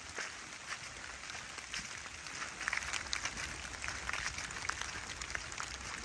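Rain pattering on leaves, with many small irregular taps, mixed with footsteps rustling through wet fallen leaves on a forest path.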